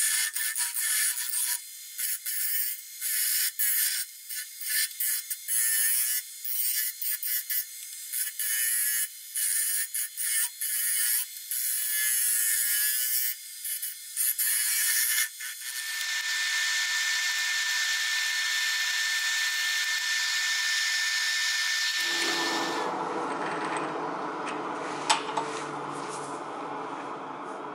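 A turning tool cuts spinning wood on a wood lathe in a run of short, hissing cuts, each a fraction of a second long. About halfway through the cuts give way to a steadier hiss with a thin whistle. Near the end that stops and a lower steady hum with a single click takes over.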